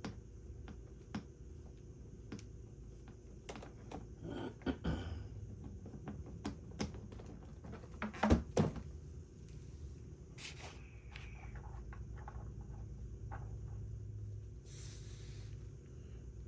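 Scattered clicks, taps and knocks of things being handled during work on a small generator, with the loudest pair of knocks about eight seconds in, over a steady low hum.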